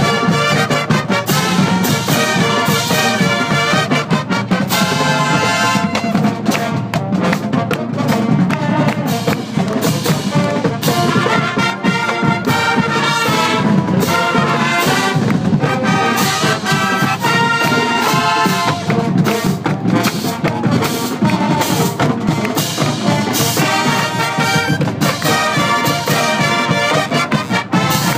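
Brass band of trumpets, trombones and sousaphones playing a tune together loudly, with a steady beat.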